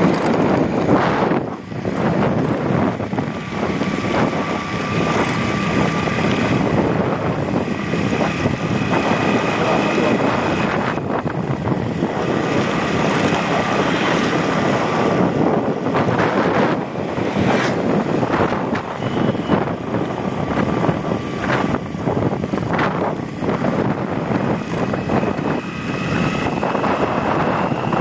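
Motorcycle running steadily along a road, its engine noise mixed with wind buffeting the microphone.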